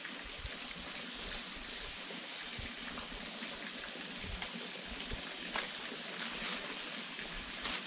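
Steady hiss of running water, with a few faint clicks.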